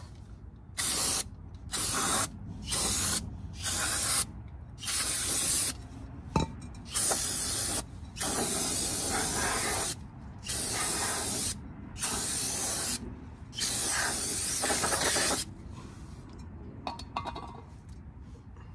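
Aerosol spray can with a straw nozzle hissing in about a dozen short bursts, cleaning the inside of a brake drum. The spraying stops about fifteen seconds in.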